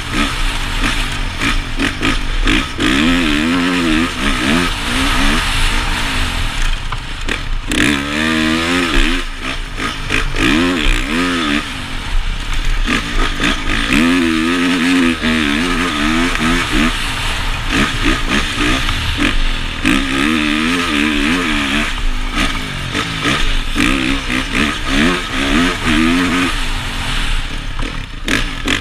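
Honda CRF450 single-cylinder four-stroke motocross engine under hard riding, its pitch rising and falling again and again as the throttle is opened and closed, heard from a helmet-mounted camera.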